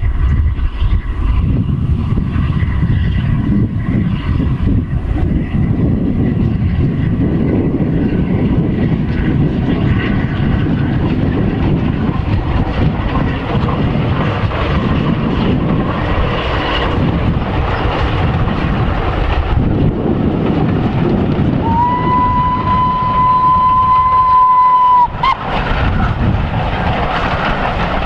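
Two steam locomotives double-heading a passenger train past at speed, a heavy rumble of exhaust and running gear. Near the end a steam whistle sounds once, one steady note held for about three seconds and cut off sharply.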